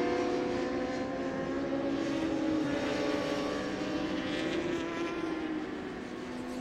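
Racing superbike engine held at high revs through a corner, a steady drone whose pitch drifts slowly and eases off slightly near the end.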